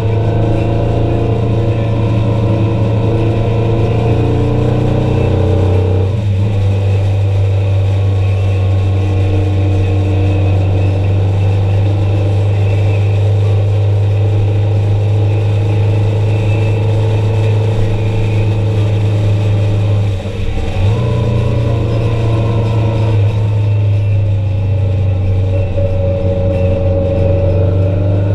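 Vehicle engine running steadily while driving, with a strong low note and its overtones. The engine note briefly breaks and shifts about six seconds in and again around twenty seconds in.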